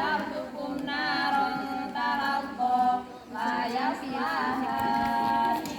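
A single voice reciting Qur'an verses in a chanted melody, with long held notes that slide in pitch and a short breath pause about three seconds in.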